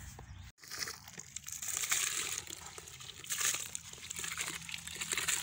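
Water and rice being poured from a metal pot into a large pot of hot water over a wood fire: a steady rushing splash with many small crackles, starting about half a second in.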